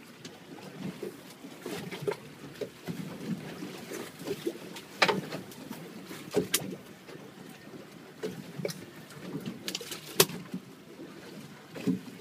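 Choppy water slapping and sloshing against the hull of a drifting small boat, with irregular knocks and a few sharp clicks.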